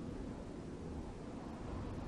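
Steady low background noise of room tone, a faint hiss and low rumble with no distinct event.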